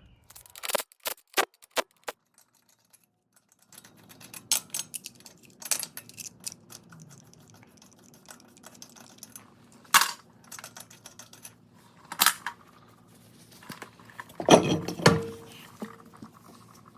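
Scattered metallic clicks, clinks and knocks of hand tools and lug nuts while a car wheel is taken off, with a short, denser, louder clatter near the end.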